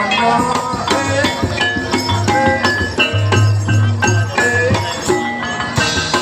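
Loud, upbeat dance music: a melody line over steady drumming and jingling percussion like bells or tambourine, with deep drum pulses coming and going.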